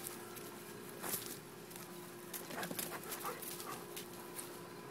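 Doberman Pinscher puppies at play, giving a few short whimpers and yips about halfway through, with light clicks and scuffles throughout.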